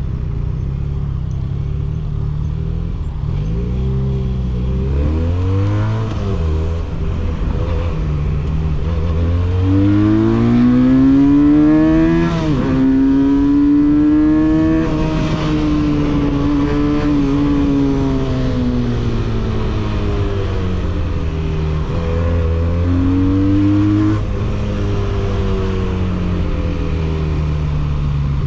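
Benelli 302S motorcycle's parallel-twin engine and exhaust on the move: the revs climb for a few seconds, drop sharply at a gear change, then hold and slowly fall off. A shorter rise later ends in another sudden drop.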